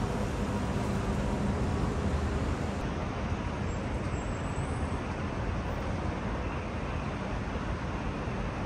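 Steady city traffic noise, an even rumble with no distinct events.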